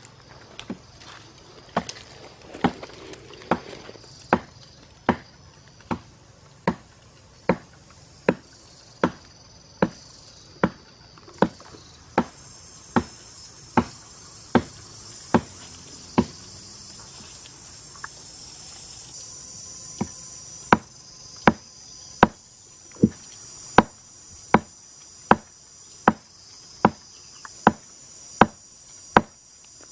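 Rhythmic chopping blows, about one every 0.8 seconds, with a pause of about four seconds just past the middle, over a steady high drone of forest insects.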